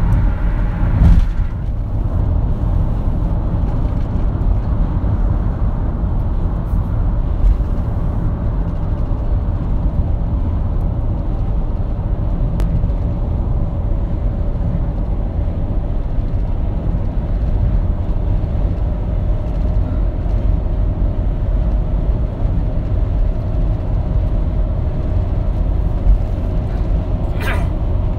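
Steady low rumble of a car at highway speed heard from inside the cabin: tyre and engine noise with a faint steady hum.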